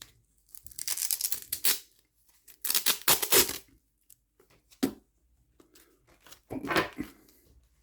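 Packaging being torn and rustled open by hand, in four separate bursts with short pauses between them.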